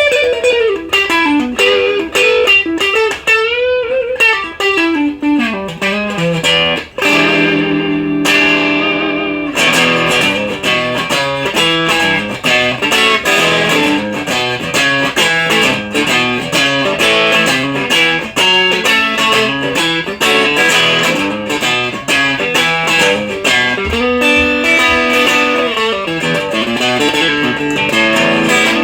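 Electric guitar, an LTD-213 Strat-style with Duncan Designed pickups, played through a Maxon OD-9 overdrive pedal into a Marshall DSL-1 amp. It plays a lead line with slow string bends over the first few seconds, then fast runs of picked notes.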